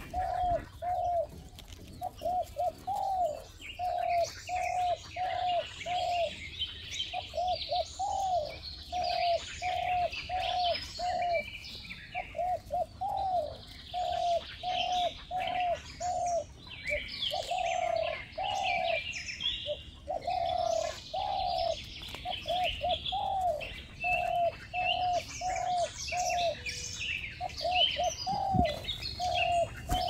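Birds calling: a steady run of short cooing notes, about two a second and sometimes in quick groups, with small birds chirping and tweeting higher up.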